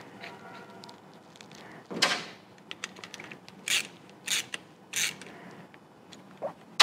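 Small metal sediment cup being twisted onto the fuel valve of a Honda GX160 carburetor by hand: a few short scrapes and clicks of metal on metal, roughly a second apart.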